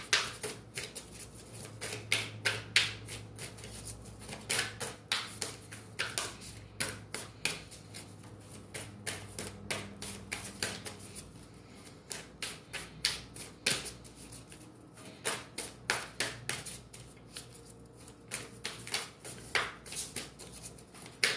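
A deck of oracle cards being shuffled by hand: a quick, uneven run of card flicks and slaps, several a second, with brief pauses.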